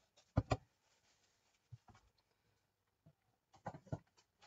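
Handling noise of craft tools on a tabletop: two sharp knocks about half a second in, a few faint ticks, then a quick cluster of knocks and clatter near the end.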